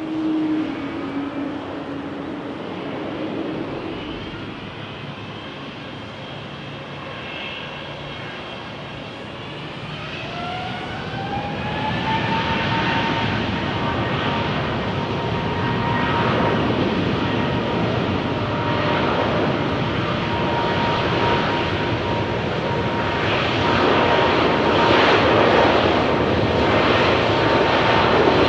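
Boeing 777-200ER's twin jet engines spooling up for take-off. About ten seconds in, a whine rises in pitch and settles into a steady high tone, while the engine noise grows steadily louder toward the end.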